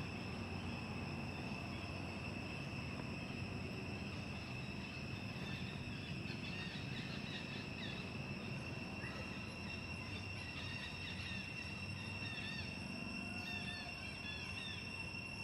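Steady, unbroken high-pitched insect drone of outdoor forest ambience, with a few faint, short, high chirps in the second half.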